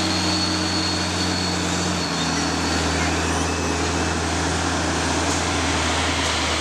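A steady engine hum with low droning tones under an even hiss; the drone shifts slightly in pitch about two seconds in.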